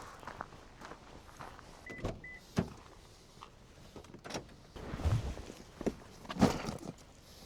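A run of separate knocks and clunks, like doors and gear being handled, with two short high electronic beeps about two seconds in.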